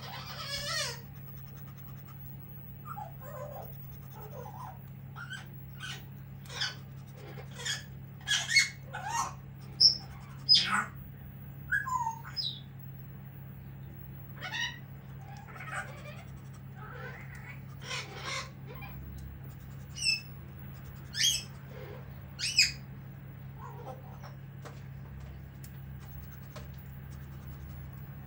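Pet parrot squawking and screeching in a run of about twenty short, sharp calls, some sweeping quickly in pitch, loudest about a third of the way in and again near 21 seconds, then falling silent. A steady low hum lies underneath.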